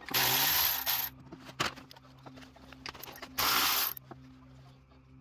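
Milwaukee M12 cordless power tool running in two bursts, about a second and then half a second, spinning out the 13 mm bolts of the timing belt idler pulley, with light metal clicks from the socket between bursts.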